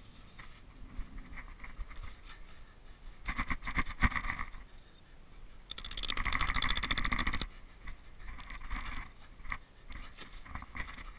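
Crunching and scraping in snow as a lavvu's bottom edge is pegged down by hand. A quick run of gritty crunches comes about three seconds in, and the loudest sound is a rasping scrape of about a second and a half near the middle.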